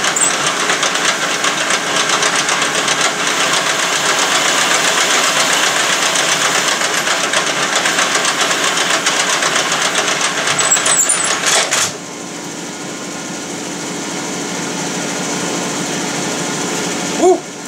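Metal lathe taking a cut on a metal part: a loud, steady cutting noise with a fast, even chatter. It stops suddenly about twelve seconds in, leaving the lathe running more quietly with a low hum. A short squeak comes near the end.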